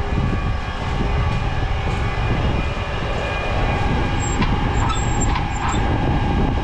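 Tractor engine idling steadily close by, with a few light clicks and short squeaks about four to six seconds in from the cultivator's depth-wheel crank being turned.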